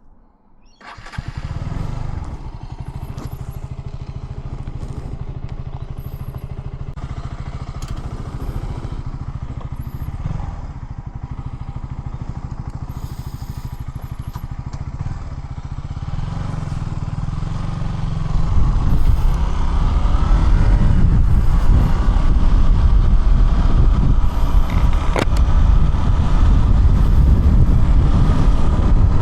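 KTM Duke 200's single-cylinder four-stroke engine starting up about a second in and running steadily at idle. From about eighteen seconds in it runs louder, with a heavier low rumble.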